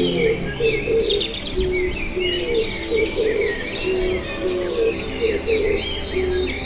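Many birds chirping and twittering at once in quick, overlapping calls, with short, low repeated notes underneath.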